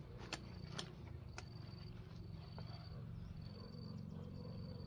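An insect chirping in short high trills, each about half a second long, repeating about once a second. A few sharp clicks sound in the first second and a half.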